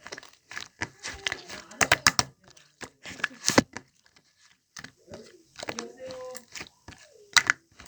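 Slime being squeezed and pressed by hand, giving irregular sharp clicking and crackling pops.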